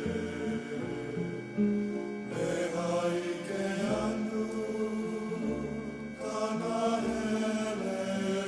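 Background music with slow, held chant-like vocal tones that change pitch every second or so.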